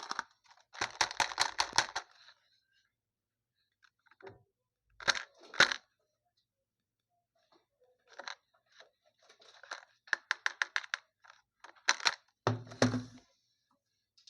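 Packaging being handled and torn open: crackling, crunching bursts that come in separate spells with silences between, including a quick run of crackles and, near the end, a dull thud among the crackles.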